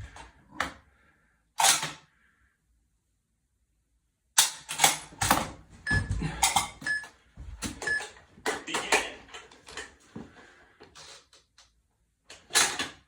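Precision rifle being handled through a dry-fire drill: runs of sharp clicks and knocks from working the action, swapping magazines and shifting between positions. A few short high beeps come near the middle.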